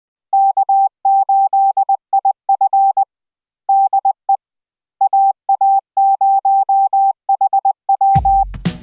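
Morse code sent as a single steady beep, keyed in short and long tones with pauses between groups. Music with a drum beat comes in near the end.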